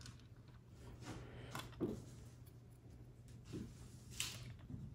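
Faint scattered clicks and light scrapes of small metal parts being handled inside an opened laptop, the loudest a short scrape about four seconds in, over a low steady hum.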